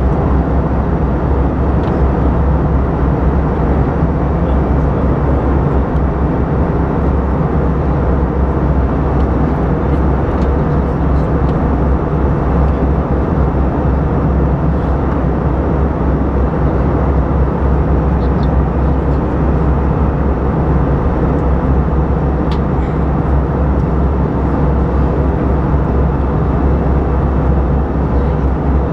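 Steady cabin roar of an Airbus A320-232 in descent, heard from a window seat over the wing: its IAE V2500 turbofan engines running and the airflow past the fuselage.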